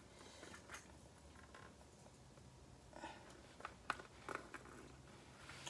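Faint handling noise of a Xenith X2E+ football helmet being worked on by hand: a few small clicks and knocks of its hardware against the shell, most of them three to four and a half seconds in, over a near-silent room.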